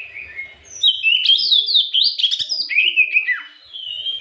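Oriental magpie-robin (kacer) singing a rapid, loud run of varied whistled notes, many of them sliding downward in pitch. The full song starts about a second in and eases off near the end.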